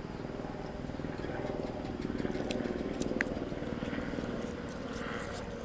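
A small engine running, growing louder toward the middle and fading near the end, as a passing vehicle or motorised machine does.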